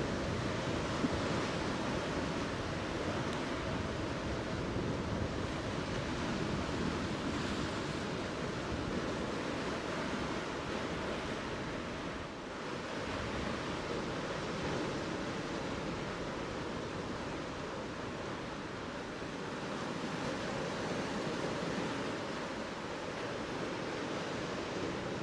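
Steady rush of sea surf washing over a rocky reef, with a brief slight lull about halfway through.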